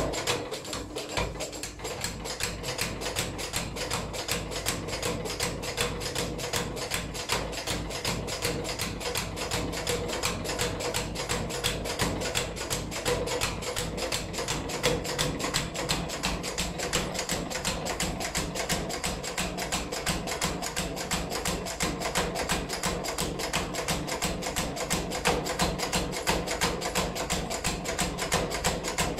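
Belt-driven mechanical power hammer pounding hot iron: a fast, even run of blows, several a second, with no pause.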